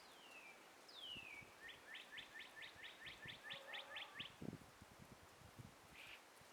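A songbird singing: two falling whistles, then a rapid trill of about a dozen short rising notes, then two brief calls near the end. A few soft low thumps from wind on the microphone come during the trill.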